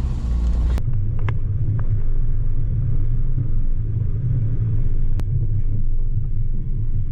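Off-road truck engine running low and steady, a continuous deep rumble as the truck crawls over rocky terrain.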